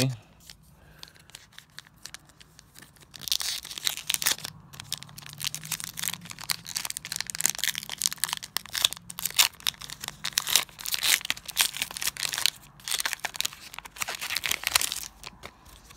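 A Pokémon booster pack's foil wrapper crinkling and tearing as it is opened by hand, in irregular crackles from about three seconds in until shortly before the end.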